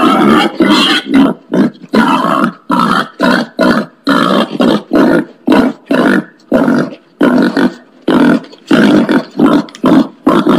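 Wild pig grunting over and over, about two grunts a second with short gaps between them.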